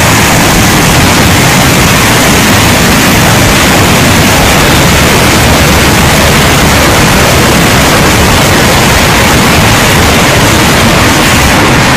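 Multiple rocket launchers firing a salvo: a steady, loud roar of rocket motors as rockets leave one after another without a break.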